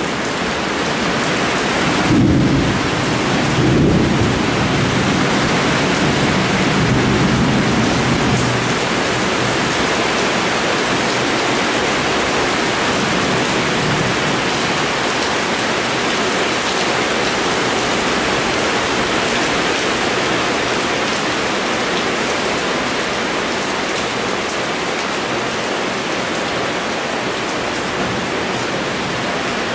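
Heavy downpour of rain, a steady loud hiss, with a low rumble underneath during the first eight seconds or so.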